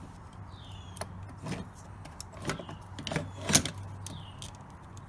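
Small metallic clicks and taps of ring terminals and nuts being handled on the terminal posts of an ATV winch solenoid, a handful over a few seconds, the loudest about three and a half seconds in, over a steady low hum.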